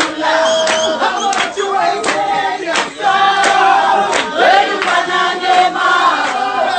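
A group of voices singing together in a loud, lively chorus. Sharp beats cut through it about every two-thirds of a second.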